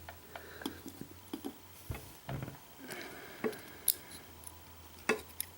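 Faint, scattered small metallic clicks and taps of tweezers handling tiny lock pins from a disassembled pin-tumbler lock, with a sharper click about five seconds in.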